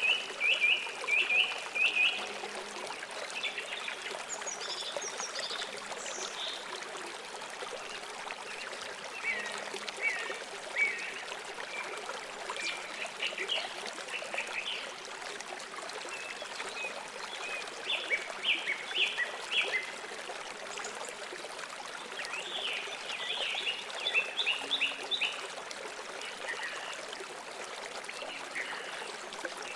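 A river or stream flowing with a steady rush of water, while songbirds chirp in quick runs of short notes several times over it.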